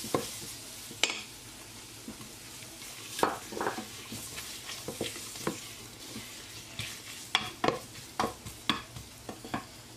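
A wooden spoon stirs and scrapes chopped onions through flour frying in oil in a stainless steel pot. A steady quiet sizzle runs under irregular knocks and scrapes of the spoon against the pot.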